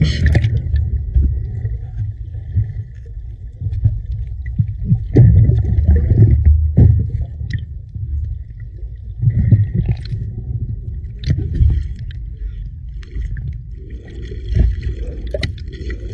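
Muffled water sloshing and rumbling against a partly submerged camera, swelling louder at times, with scattered small knocks.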